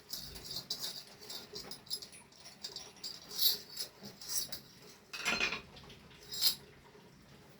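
Light metallic clicks, scrapes and rattles of hand tools and bicycle crank parts being worked loose. Three louder clanks stand out, the fullest about five seconds in.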